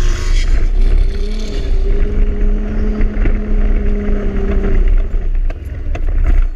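Toyota Tacoma pickup's engine pulling hard up a sand dune over a deep rumble, its pitch rising about a second in and holding steady, then dropping away about five seconds in as the truck tops the crest.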